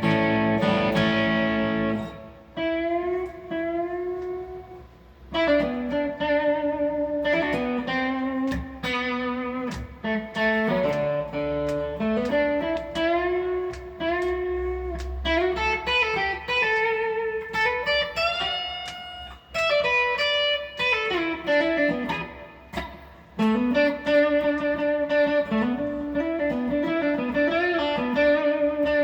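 A guitar playing a lead melody of single notes, many of them bent upward in pitch, with short pauses between phrases.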